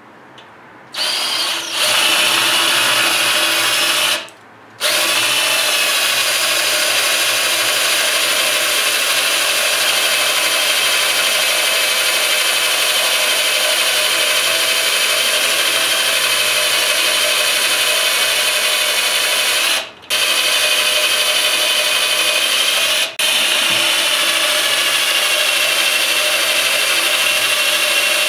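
Electric drill running a twist bit into a bolt snapped off inside a transmission housing, drilling it out. It starts about a second in, stops briefly around four seconds, then runs as a steady high whine with two short pauses, near twenty and twenty-three seconds.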